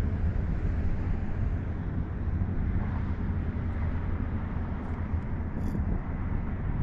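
Steady low rumble of wind buffeting the microphone over open water, with a few faint ticks about five seconds in.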